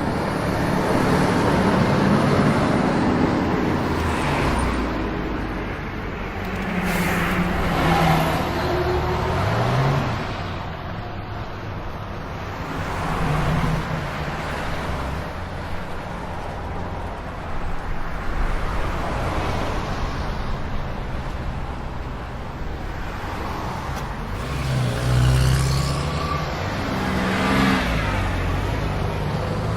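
Road traffic: car engines running, with several vehicles passing.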